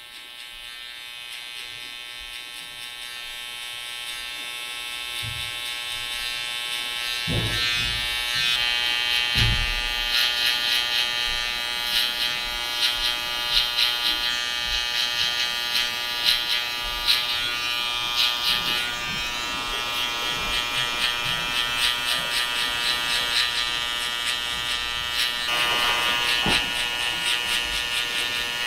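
Cordless T-blade hair trimmer buzzing steadily as it edges around the ear and along the neck hairline. It grows louder over the first several seconds and then flutters unevenly.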